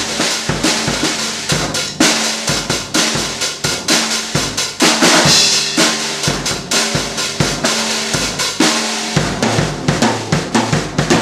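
Drum kit being played: a busy, steady beat of bass drum and snare strikes, getting brighter and louder for a moment about five seconds in.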